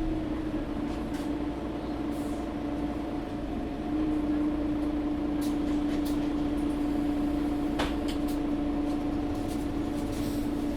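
Mercedes-Benz O530 Citaro facelift articulated bus heard from inside the passenger cabin: the drivetrain hums steadily at one pitch after a falling tone settles at the start. It grows a little louder about four seconds in, with a sharp click near eight seconds.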